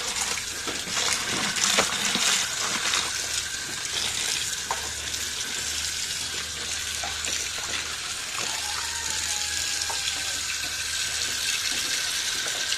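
Water running steadily, with a few light clicks and clinks.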